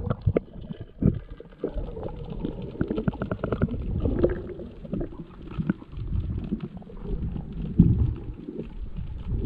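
Underwater sound around a submerged camera: muffled gurgling and bubbling of water, with many irregular small clicks and knocks.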